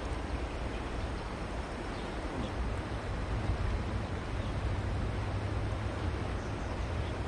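Steady outdoor noise of a flowing, shallow river, with a low rumble underneath that grows stronger about three seconds in.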